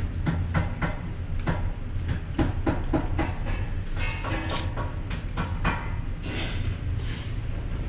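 Chopsticks clicking and tapping against plastic food containers, with eating noises, over a steady low hum.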